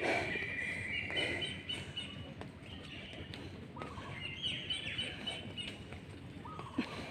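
Birds chirping in two short bouts of quick, stepped high calls, one at the start and another about four seconds in, over steady outdoor background noise.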